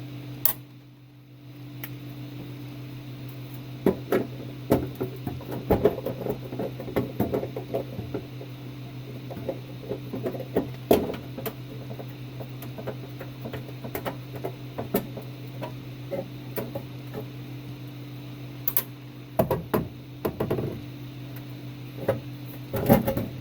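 Scattered clicks, taps and knocks of hand work on a range hood's push-button light switch and its housing, over a steady low hum.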